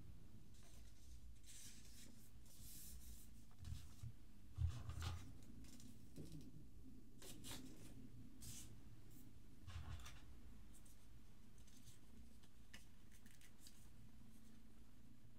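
Paper instruction leaflets rustling and being folded in the hands, then cardboard packaging and wrapped accessories being handled, with a few soft knocks, the clearest a little under five seconds in and another near ten seconds.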